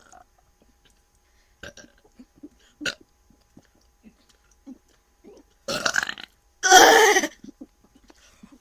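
Two loud belches about a second apart, near the end; the second is the louder.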